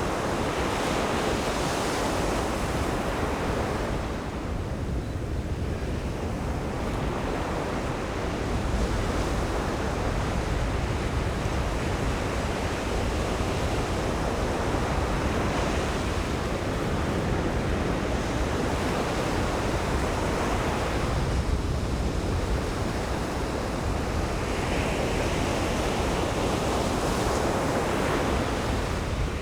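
Atlantic Ocean surf breaking on a sandy beach: a continuous wash of breaking waves with a deep rumble, swelling and easing every several seconds.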